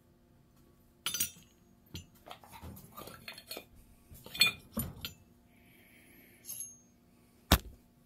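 Metal turbocharger parts being handled on a workbench: a series of small clinks and knocks as the compressor wheel and bearing housing are moved and set down, with one sharp metallic click near the end as the turbine shaft is drawn out of the bearing housing.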